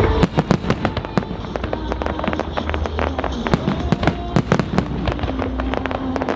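A fireworks display: a rapid volley of sharp cracks and bangs from bursting firework shells, several a second, over a low rumble.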